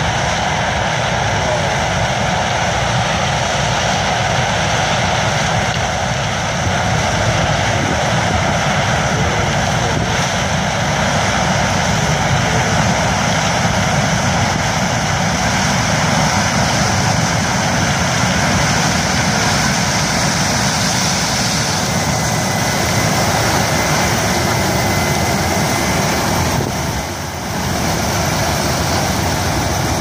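A combine harvester cutting corn and a John Deere tractor pulling a grain cart, their diesel engines and threshing machinery running steadily and loudly, with a brief dip in level near the end.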